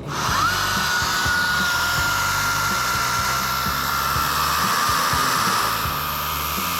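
Milwaukee M18 battery-powered chainsaw running at full speed and cutting through wood: a high electric-motor whine that spins up within the first half second, then holds steady over the cutting noise, sagging slightly in pitch under load in the second half.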